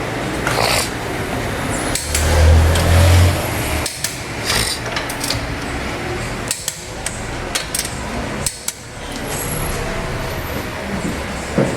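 Wheel lug nuts being tightened with a torque wrench: a series of sharp clicks and metallic knocks, with a short low hum about two seconds in.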